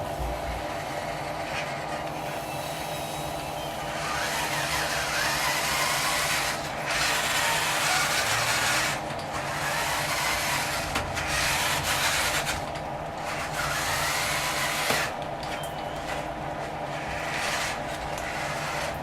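Small electric motors of a radio-controlled construction model running with a steady whine, and repeated louder stretches of rasping and grinding from about four seconds in, each lasting a second or two.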